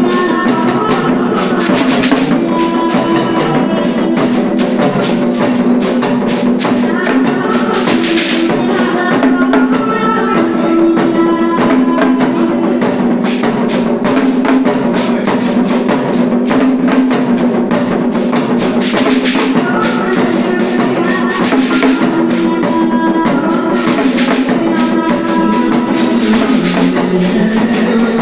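Loud music with drums and percussion under a sustained melodic line, playing without a break.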